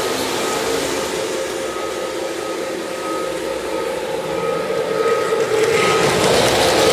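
Lionel O-gauge model train running on the layout's track, a steady rumble of wheels and electric motor hum. It grows louder near the end as a New York Central diesel locomotive passes close by.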